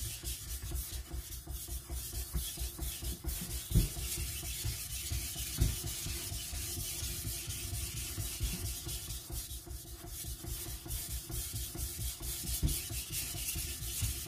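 Steel edge of a CCK Chinese cleaver stroked back and forth on a whetstone, a continuous scraping rub with a few sharper knocks along the way.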